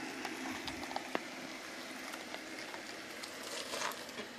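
Jeep Wrangler crawling slowly down a rock ledge: the engine runs low and steady under a noisy hiss, with a few sharp clicks of the tires and suspension working over the rock.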